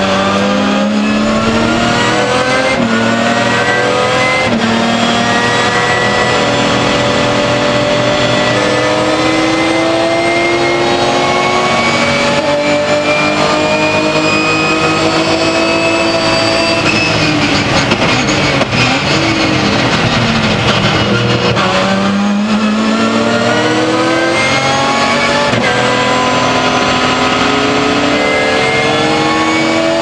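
BMW S50B32 3.2-litre straight-six of a 1996 M3 E36 race car, heard from inside the cabin, accelerating hard at racing revs. At the start the pitch climbs in quick steps through upshifts, then rises in one long pull. About halfway through the revs fall away as the car brakes and downshifts, and then the engine pulls and climbs again.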